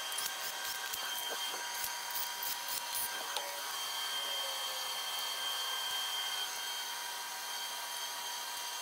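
Faint steady workshop hum with a few light clicks of tools on the engine block.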